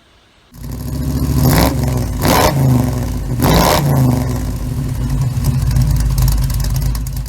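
Ford Focus engine running and revved three times in the first few seconds, its exhaust loud from a failed flex pipe.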